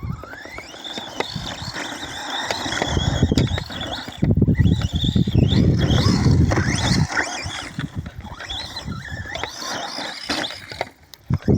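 Remo Hobby EX3 RC short-course truck driving off-road: its electric motor whines, rising in pitch near the start and then rising and falling again and again with the throttle. Under the whine there is a rumbling noise of tyres on rough ground, loudest in the middle.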